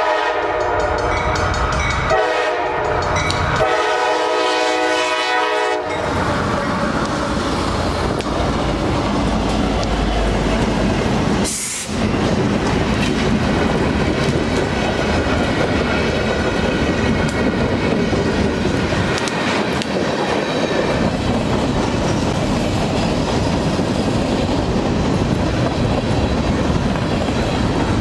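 Diesel freight train's locomotive horn blowing for the grade crossing for about the first six seconds, broken briefly twice. Then the train running past at speed: the steady rumble and clatter of its wheels on the rails as the freight cars roll by.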